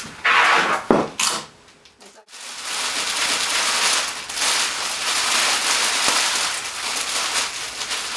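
Printed cellophane crinkling and rustling as it is handled and gathered by hand into a bunch at the top of a wrapped basket: a few loud bursts in the first second, a short lull about two seconds in, then steady crinkling.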